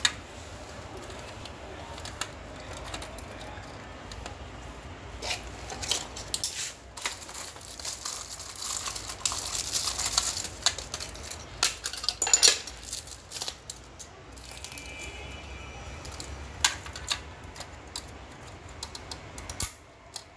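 Scattered clicks, knocks and rustling from cables and plastic network equipment being handled and plugged in, with a dense stretch of rustling and clicking in the middle.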